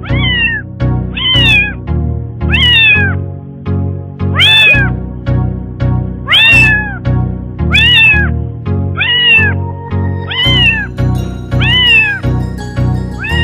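A cat meowing again and again, about ten meows roughly a second and a bit apart, each rising then falling in pitch, over background music with a steady low beat.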